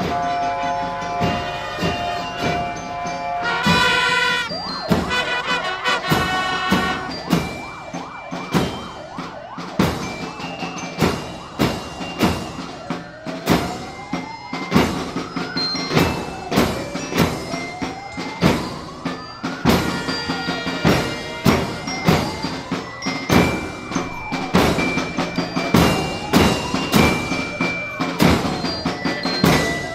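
Parade band drums beating steadily with other band instruments. From about halfway through, a fire engine siren wails, rising and falling about once every three seconds over the drumming.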